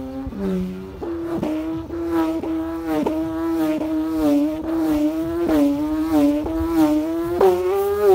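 Khmer kite hummer (ek), a bow of freshly cut rattan with a thin strip for its string, whirled round on a cord and humming one wavering note. A pulse comes with each turn, about twice a second, and the pitch rises a little near the end.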